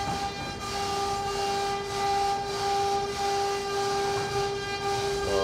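A machine running with a steady high whine over a hiss.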